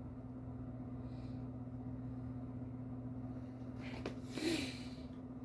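Steady low hum of room tone, then a sharp click about four seconds in and a short breathy snort through the nose just after it.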